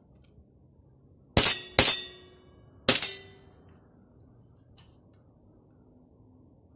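CO2 air pistol fired three times in a Mozambique drill: two quick shots, then a third about a second later, each a sharp crack with a brief metallic ring.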